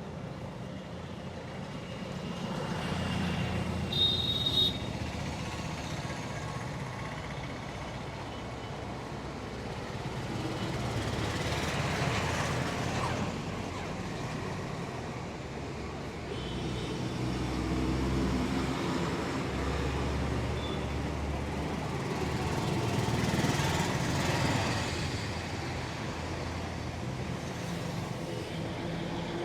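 Street traffic: vehicles passing one after another, the noise swelling and fading several times, with a short high-pitched beep about four seconds in.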